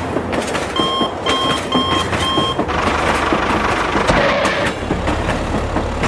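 Four short electronic warning beeps, evenly spaced about two a second, followed by a steady rushing noise.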